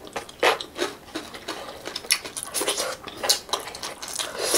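Close-miked eating by hand: irregular crisp crackles and rubbing as food is picked up with the fingers and chewed.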